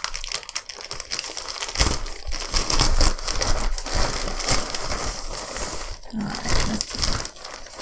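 Plastic poly mailer crinkling and crackling as hands grip it and tear it open. A dense run of small crackles that gets louder about two seconds in.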